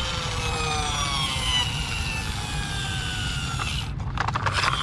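A motor vehicle passing by, its engine's pitch falling slowly over a low rumble, with a few sharp clicks near the end.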